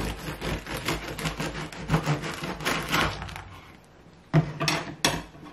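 Bread knife sawing through the crisp crust of a freshly baked wheat-and-spelt loaf, the crust crackling with each stroke. The cut finishes about three and a half seconds in, followed by two sharp knocks.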